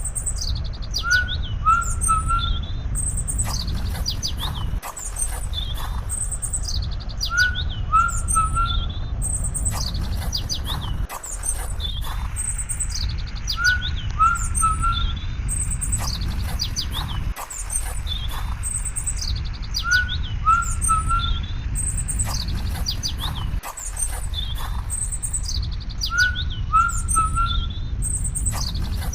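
Small birds chirping and calling over a steady low rumble. The same stretch of about six seconds repeats over and over, cutting and restarting each time like a looped nature recording.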